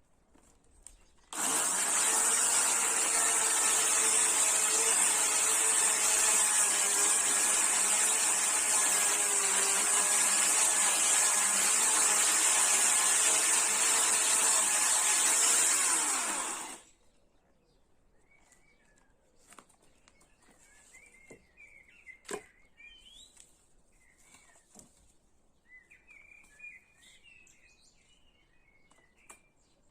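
Chainsaw running steadily for about fifteen seconds, starting about a second in and stopping abruptly; afterwards, faint birds chirping and a single sharp click.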